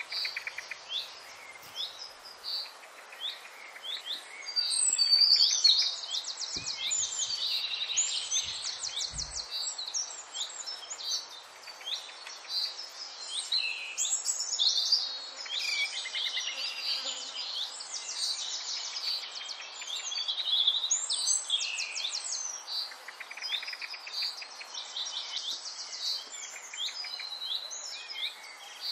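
Songbirds chirping and trilling, many short calls overlapping.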